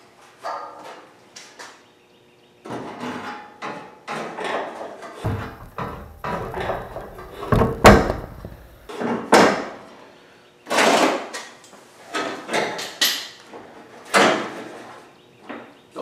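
A loose sheet-metal tail panel being handled and fitted against the rear of a 1968 Ford Mustang coupe body: a string of irregular metal clunks, scrapes and rattles, with a sharp knock about eight seconds in.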